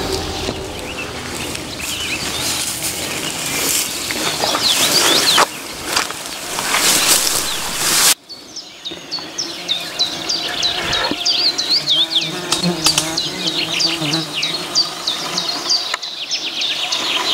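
Flying insects buzzing close by, over a loud rustling noise in the first half. The sound cuts off abruptly about eight seconds in, and the buzzing then goes on under many quick high chirps.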